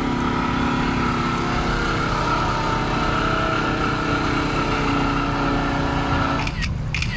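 An idling engine running steadily, its hum stopping suddenly about six and a half seconds in.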